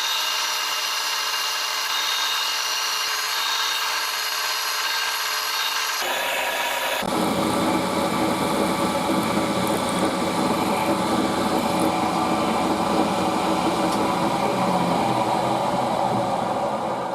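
Milling machine spindle running with a steady whine while a 6.5 mm twist drill bores a tapping hole in an aluminium block. About seven seconds in, the sound turns rougher and slightly louder.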